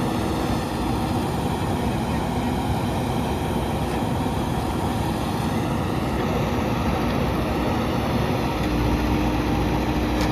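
Backhoe loader's diesel engine running steadily, with a low hum that stays even throughout.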